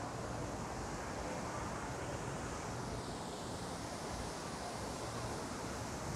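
Steady outdoor city background noise, a low even rumble with wind on the microphone.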